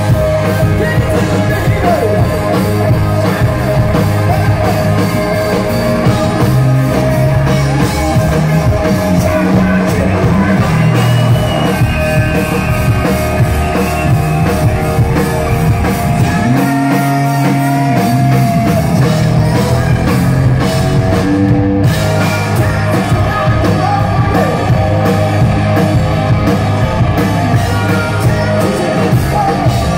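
Live rock band playing loud through a club PA: drum kit, electric guitars, bass and a lead singer. The bass and kick drum drop out for about two seconds just past the halfway point, then the full band comes back in.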